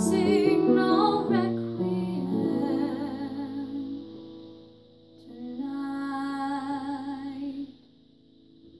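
The closing bars of a song for voice and piano: a girl sings long held notes with vibrato over sustained piano chords, and the last chord fades away near the end.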